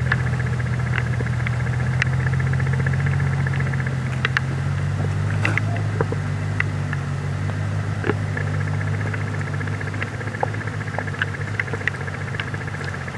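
Land Rover Discovery II engine running low and steady as the 4x4 crawls up a steep rutted dirt trail, with scattered clicks and knocks. The engine note shifts slightly about five seconds in and fades a little as the truck pulls away.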